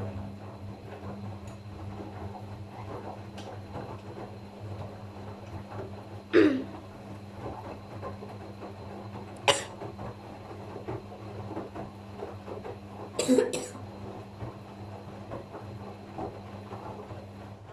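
Gorenje washing machine running a short wash programme with a steady hum. Three sudden loud sounds come about six, nine and a half, and thirteen seconds in.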